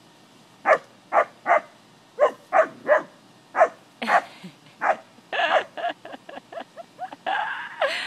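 English springer spaniel barking at cattle through a fence: a string of sharp barks starting about a second in, coming faster and closer together in the second half.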